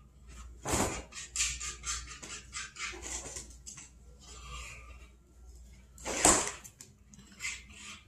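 Refrigerator being opened, with bottles and jars clinking as items are moved around inside, and the door shutting again. There is a sharp knock near the start and another about six seconds in.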